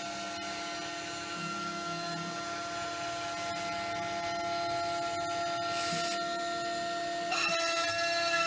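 CNC router spindle running as its end mill carves a wooden turbine blade, a steady whine with several pitches over the noise of cutting. A little before the end the sound grows louder and the whine shifts slightly in pitch.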